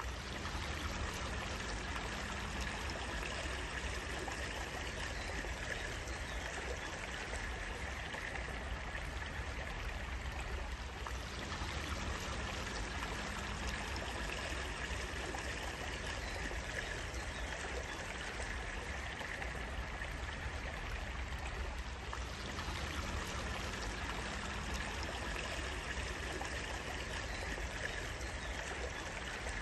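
Flowing stream water running steadily in a continuous, even rush.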